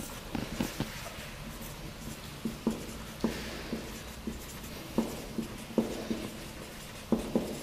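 Marker pen writing on a whiteboard: a run of short, irregular taps and strokes as the tip forms letters.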